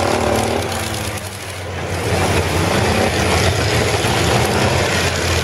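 Demolition derby car engines running hard, a car spinning its wheels on dirt. The engine noise eases briefly about a second and a half in, then comes back.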